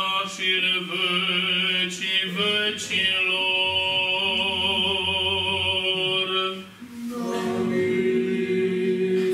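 A cappella choir singing a slow Orthodox liturgical chant in long held notes, with a brief break about seven seconds in.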